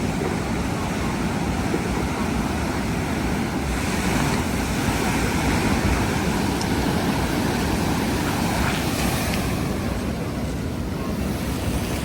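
Ocean surf breaking and washing on a beach, with wind rumbling on the microphone. The hiss of a wave swells about four seconds in and dies back near the end.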